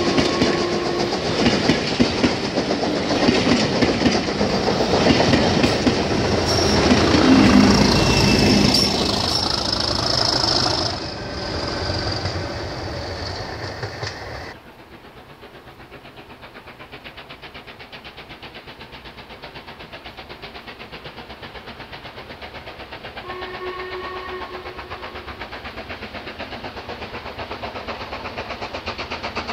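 Coaches of a steam-hauled train rolling past on jointed track, clicking over the rail joints, with a high thin squeal from the wheels midway through the passing. About halfway, the sound drops abruptly to a quiet lineside background, and a short, faint steam whistle sounds in the distance about two-thirds of the way through.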